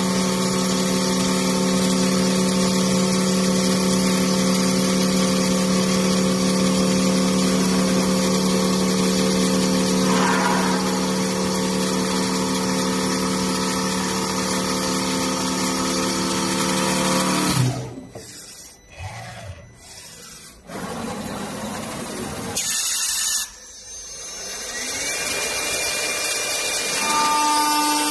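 Four-axis CNC woodworking router machining wooden furniture legs, running with a steady hum. About eighteen seconds in the sound drops away abruptly to quieter, intermittent noise with a short burst of noise, and a steady tone builds back up near the end.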